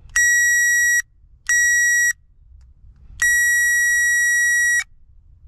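Electronic beeper giving three steady, high-pitched beeps: two short ones, then a longer one of about a second and a half.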